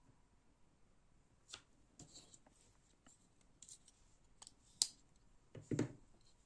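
Handling of a folding knife: a few small sharp clicks, the loudest near five seconds in, then a duller knock near the end.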